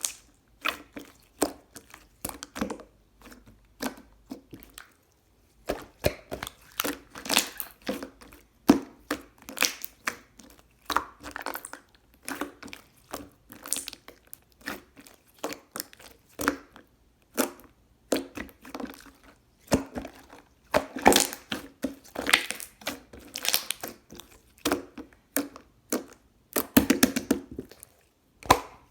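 Irregular crinkling and crunching noises that come in quick clusters, with brief pauses between them.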